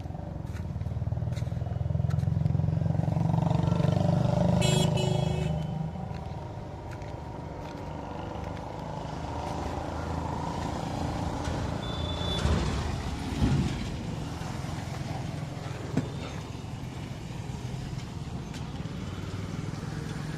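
A motor vehicle's engine passing by: the low rumble swells for a few seconds near the start, then fades to a steady background drone, with a brief high-pitched tone about five seconds in.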